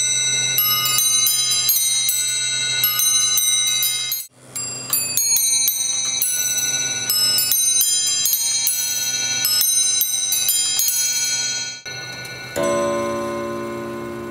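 The eight nested bells of a J. Smith & Sons three-train skeleton clock chime the quarters, struck by hammers in quick runs of bright ringing notes. About twelve seconds in, the clock's coiled steel gong strikes once for the hour: a single lower note that rings on and fades.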